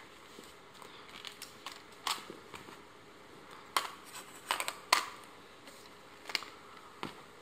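Lens change on a Samsung NX500 mirrorless camera: several sharp clicks and clacks as the 16-50mm kit lens and the Samsung 20mm f/2.8 are twisted on and off the bayonet mount and the rear lens caps, over faint handling rustle. The loudest click comes about five seconds in.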